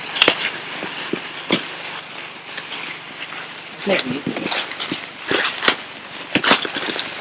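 Indistinct voices with rustling and scattered short clicks.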